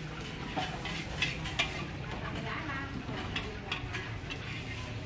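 Metal wok spatula knocking and scraping against a black wok as the fried rice vermicelli is served out: a handful of short, scattered clanks over a steady low rumble.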